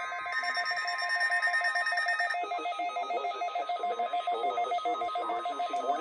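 NOAA weather alert radios sounding their alert: a rapid, even electronic beeping over a steady tone, set off by the Required Weekly Test. A broadcast voice comes in faintly beneath the beeping after about two seconds.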